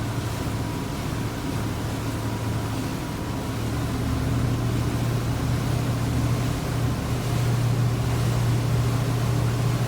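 Boat engine running in gear with a steady low drone, getting louder about four seconds in and again near the end as the throttle is brought up. This is a load test, with the engine held at set RPMs while its temperature is watched.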